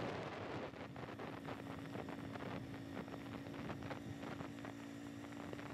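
Small vehicle engine, most likely a motorbike, running steadily while riding a rough dirt road, with wind on the microphone and many quick rattles and clicks over the bumps.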